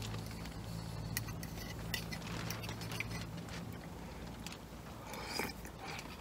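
Utensil clicking and scraping against a small metal camp pot while eating, in scattered sharp ticks, over a low steady hum.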